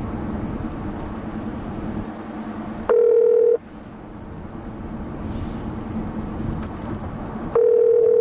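Telephone ringback tone playing through the BMW 740i's hands-free car phone while the call connects: a short ring about three seconds in, then a two-second ring near the end. Under it runs the steady cabin hum of the car's 4.4-litre V8 and road noise while driving.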